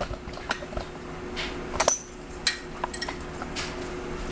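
Handling noise: scattered light clicks, knocks and clinks, a few every second, as hard objects are moved about, over a faint steady hum.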